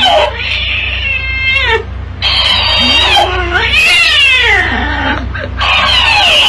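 A cat yowling at a talking hamster plush toy, which plays each sound back in a higher, squeakier voice. Cat and toy take turns several times.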